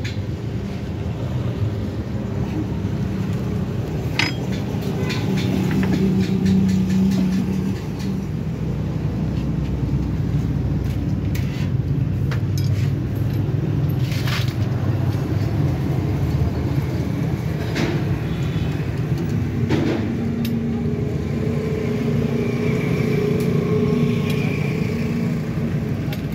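Steady low rumble of a running engine, with a few sharp knocks scattered through it.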